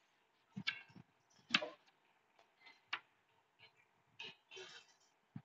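Chalk on a blackboard drawing lines and arrowheads: faint scattered taps and clicks, with one longer scrape a little after four seconds in.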